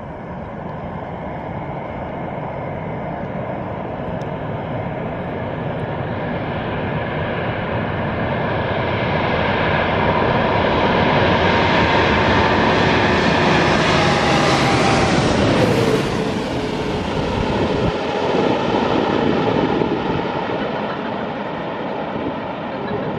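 Twin-engine wide-body jet airliner on final approach passing low overhead: the engine noise swells over about twelve seconds, peaks as it goes over with a whine that drops in pitch, then recedes.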